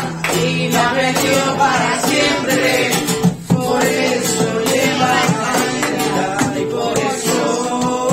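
Live flamenco: a man sings a wavering, ornamented vocal line over an acoustic flamenco guitar strumming chords. The song breaks off briefly about three and a half seconds in, then carries on.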